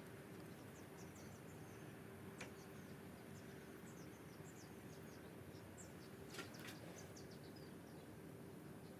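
Near silence: room tone with faint, scattered high ticks, and two sharper clicks about two and a half and six and a half seconds in.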